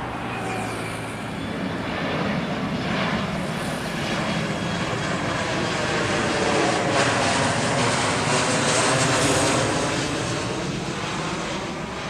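Twin jet engines of a SpiceJet Boeing 737 on final approach passing low overhead. It is a steady rushing roar that grows louder to a peak a little past the middle and then fades as the plane moves away, with a slowly sweeping, phasing tone.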